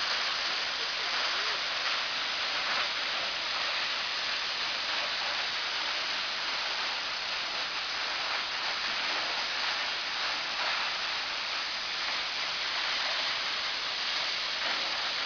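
Waterfall: water pouring and crashing steadily in an even, unbroken rushing hiss.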